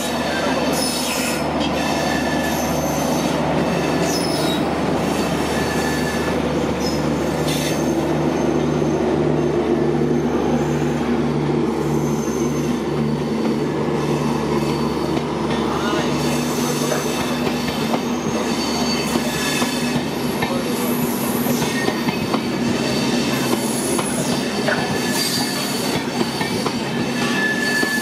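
LHB passenger coach wheels screeching against the rails as the train moves out slowly, with repeated high-pitched squeals over a steady rolling rumble and some clatter. A low hum fades about halfway through.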